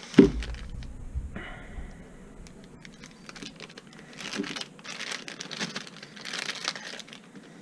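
Thin clear plastic bags crinkling and rustling as small servo parts are handled and a servo is pulled out of one, after a single thump just after the start.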